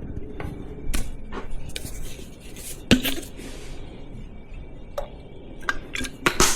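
Scattered clinks and knocks of glassware and utensils being handled on a counter while a drink is put together, with a few sharp taps spread through and a cluster near the end.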